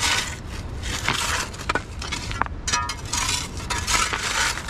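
Soil and small stones scraped and dropped into a pit, a gritty crunching scrape about once a second with a few sharp clicks of stone: a grave being filled in.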